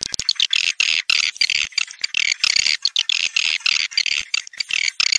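Swiftlet lure call ("tarik senja" track): a dense, rapid chatter of short, high chirps and twitters from recorded edible-nest swiftlets, played to draw swiftlets into a bird house.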